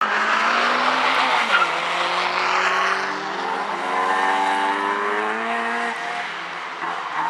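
Honda K20A2 2.0-litre four-cylinder DOHC i-VTEC engine running through its exhaust, revving: the note climbs, drops sharply about one and a half seconds in, rises slowly again for a few seconds, then falls near the end.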